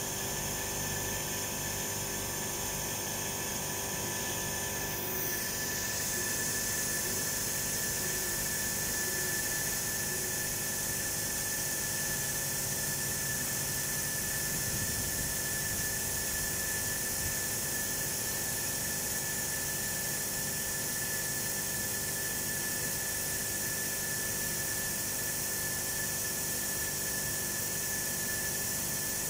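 A steady high-pitched machine whine over a constant hiss, with one brief falling sweep about five seconds in.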